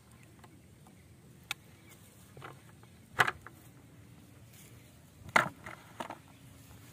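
A few sharp knocks and slaps, the loudest about three seconds and five and a half seconds in: a freshly hooked catfish being handled and put into a plastic bucket, knocking against the plastic.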